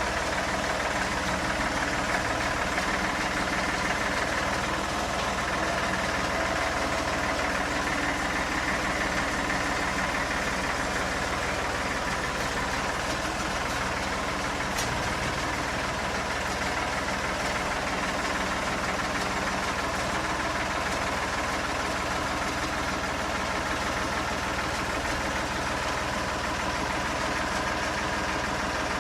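Engine running steadily at an even speed, with no revving.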